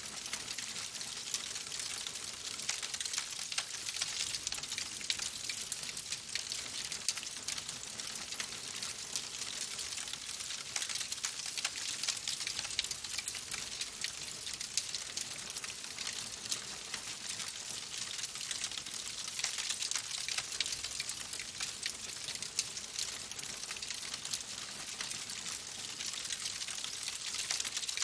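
Wood fire crackling in a fireplace: a steady hiss with dense, fine pops and crackles throughout.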